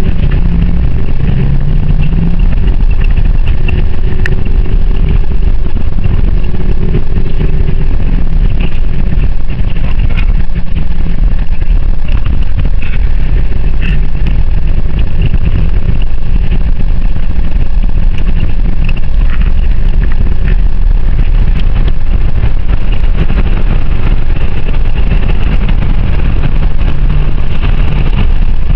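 A car being driven: a steady, loud low engine drone and road rumble with a few small clicks.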